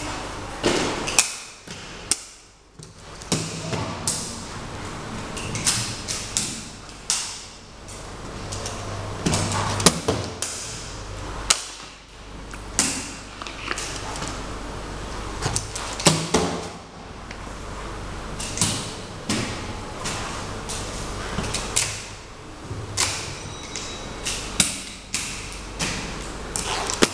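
Inline skate wheels rolling on a hard, polished stone floor: a rolling rumble that swells and fades with each stride, broken by frequent sharp clacks of the skates on the floor.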